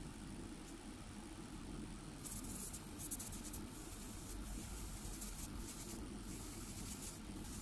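Gravity-feed airbrush spraying in short bursts, a hiss switched on and off several times, starting a couple of seconds in. A steady low hum runs underneath.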